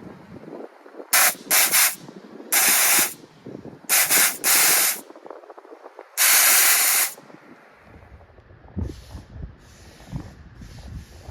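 Nitrous oxide purge valve on a Can-Am Defender's dual-outlet purge system venting in six sharp hissing blasts, short ones and then longer ones, the last lasting about a second. The purge clears gas from the feed line so the nitrous arrives at once.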